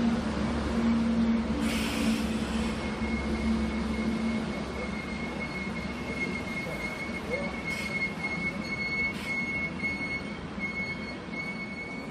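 Seoul Metro Line 1 rheostatic-control electric train running past, with a steady low hum for the first few seconds. From about three seconds in, a thin, steady high-pitched wheel squeal takes over, with a few short clicks from the wheels on the track.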